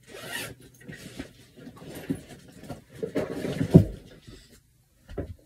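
Rustling and knocking of small toiletry items being handled close to the microphone, with one sharper knock about four seconds in.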